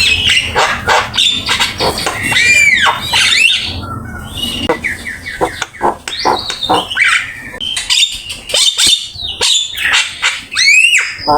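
Javan myna singing a busy, varied song of rapid chattering notes, harsh calls and clear whistles that arch up and down, with the most prominent whistles about three seconds in and again near the end.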